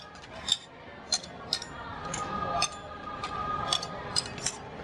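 Metal spatulas scraping and tapping on the steel cold plate of a rolled-ice-cream stand as the ice cream is spread thin, giving a series of sharp metallic clinks every half second or so.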